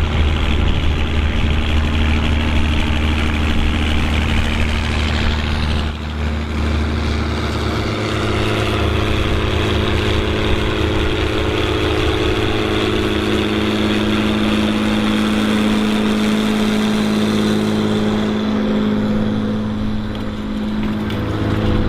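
Farm tractor's diesel engine running steadily, with its tone shifting about six seconds in.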